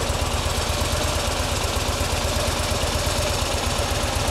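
Harley-Davidson V-twin motorcycle engine running steadily on the move, its firing pulses thudding evenly under a constant rush of wind.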